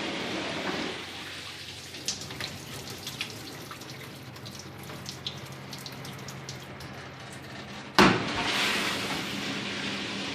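Chefquip commercial dishwasher running: water spraying dies down to drips and small clicks over a steady motor hum, then a sharp loud clunk about eight seconds in is followed by a fresh rush of water.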